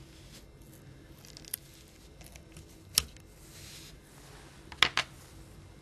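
Small handling sounds of phone disassembly: a faint peeling rustle and a few sharp clicks of a plastic pry tool against a Nokia 6210 Navigator's parts as its glued UI flex is peeled off. A pair of clicks comes close together near the end.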